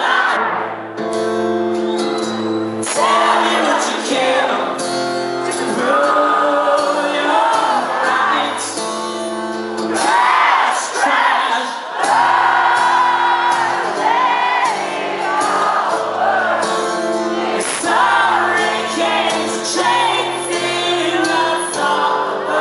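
Live rock band music with a male voice singing over sustained chords and a low bass line, heard in a large hall.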